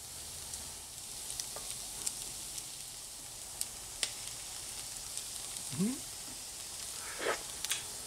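Beef pieces sizzling in hot oil in a Lodge cast iron wok, with a metal spatula clicking and scraping against the iron as they are stirred. A short rising squeak is heard about six seconds in.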